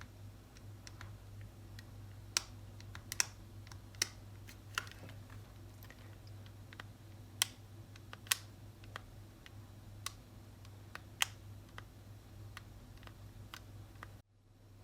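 Irregular sharp clicks and taps of small plastic parts being handled, about a dozen spread unevenly, over a steady low hum.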